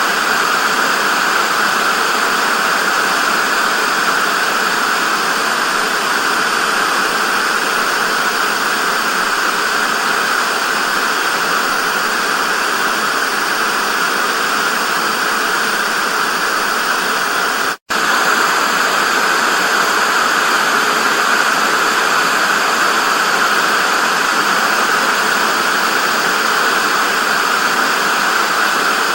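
Steady hiss of television static (white noise), strongest in the middle-high range. It drops out for an instant about two-thirds of the way through.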